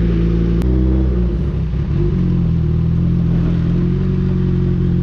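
Suzuki Hayabusa's inline-four engine running at low road speed. About half a second in, a short click comes and the engine note drops a little. It wavers for about a second, then settles into a steady note again.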